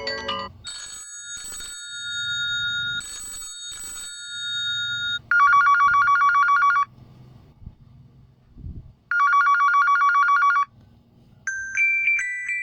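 Huawei Nova 7i ringtones playing in turn. A held electronic chime of a few steady tones is followed by a classic telephone-style ring: two loud, rapid trilling bursts, each about a second and a half long. A new ringtone starts near the end.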